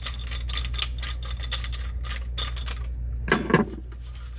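Small metal drain parts clinking and rattling against each other and the sink while being handled and taken apart, over a steady low hum that stops about three seconds in.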